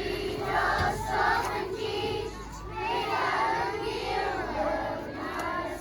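A group of children singing together, many high voices in unison with some held notes.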